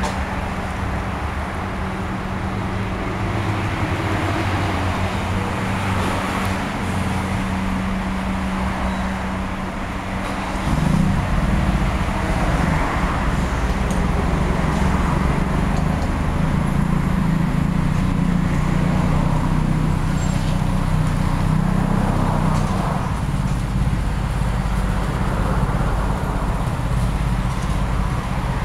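2009 Suzuki Burgman 650 scooter's parallel-twin engine idling steadily. It gets louder and its pitch shifts about ten seconds in.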